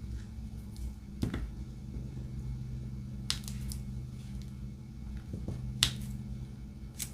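A few small, sharp clicks and taps from diamond painting work, spaced a couple of seconds apart as resin drills are pressed onto the canvas, over a steady low hum.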